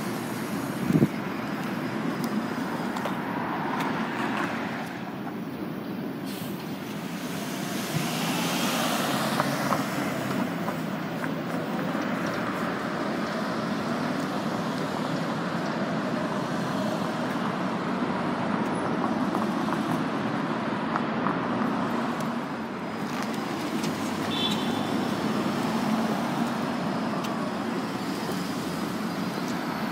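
Steady city street traffic noise from passing vehicles, among them a Nova Bus LFSe battery-electric city bus moving through and turning at the intersection. A sharp knock about a second in is the loudest moment.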